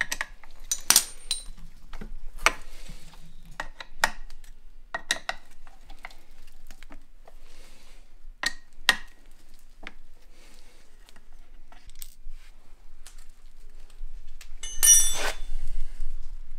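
Metal clutch parts of a Kawasaki KLX110 engine clinking and clattering as the removed clutch assembly is handled and taken apart: a string of separate sharp clinks, with a longer ringing metal clatter about fifteen seconds in.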